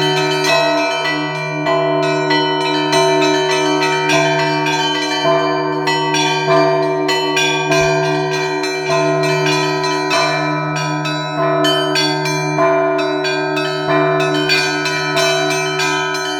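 Russian Orthodox church bells (zvon) rung by hand: a continuous peal of many bells struck several times a second, their tones overlapping, over a steady low hum from a large bell.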